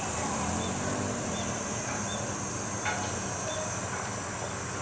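Steady high-pitched insect chorus over the low hum of diesel railcars idling at the platform, with a few short chirps.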